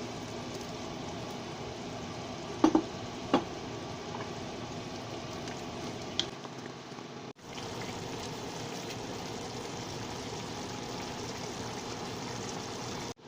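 Pork and vegetables sizzling in a pan as a stir fry, a steady hiss. Two sharp knocks come about three seconds in, and a lighter click a few seconds later.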